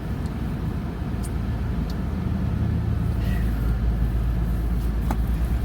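Car cabin noise: a steady low engine and road rumble that grows louder from about halfway in, with a few faint short clicks.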